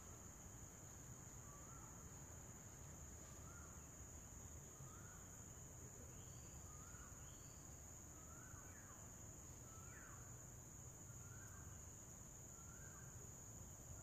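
Near silence with faint background ambience: a steady high-pitched hum, with a short, faint rising call repeating about once a second.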